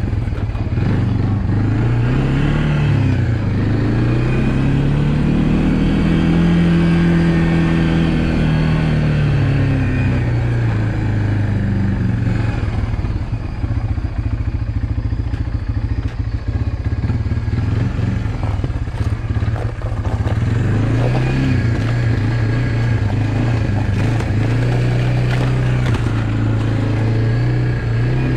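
Honda FourTrax 300 ATV's single-cylinder engine running while riding, its pitch rising and falling with the throttle. It climbs to a peak about seven seconds in, drops back to a lower, uneven pull through the middle, then rises again a few times near the end.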